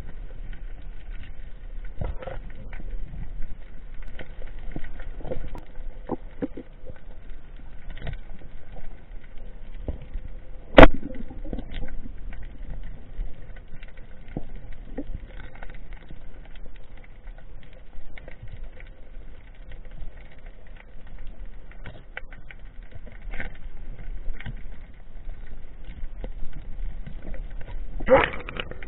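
Underwater sound picked up by a diver's submerged camera: a steady low rumble with scattered small clicks and crackles throughout, and one sharp loud knock about eleven seconds in.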